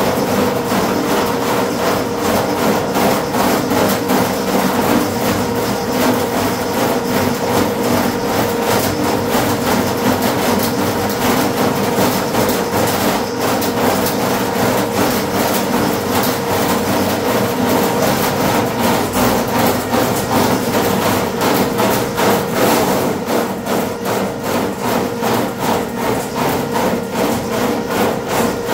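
RIDGID K-50 sectional drain cleaning machine running, its motor humming steadily while the spinning cable rattles and knocks rapidly in the drain as it is fed into a clogged toilet stack.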